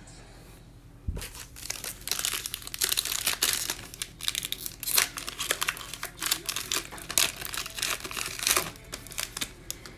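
Panini Mosaic football card pack wrapper crinkling and tearing as it is opened and handled, starting about a second in as a dense run of crackles.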